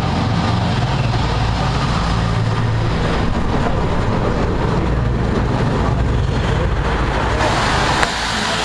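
Heavy lorry passing very close on a narrow street, its diesel engine a loud, steady low drone over traffic noise, with a sharp click about eight seconds in.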